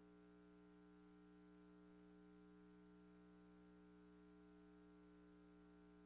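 Near silence: only a faint steady hum and hiss from the soundless film transfer.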